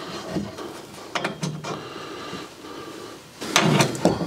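Wire fitting brush scraping around the inside of a copper elbow fitting, cleaning it for soldering, in short bouts of strokes. Near the end a copper pipe is pushed into the fitting with a louder scrape of metal on metal.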